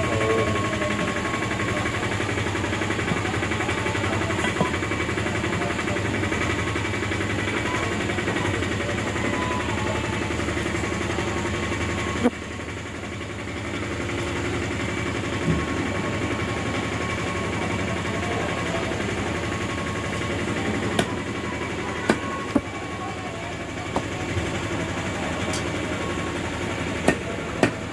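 A fishmonger's heavy knife knocking sharply on a wooden chopping block as a large catla fish is cut into pieces, the knocks scattered and more frequent in the second half. Under it runs a steady engine-like hum that drops in level about twelve seconds in.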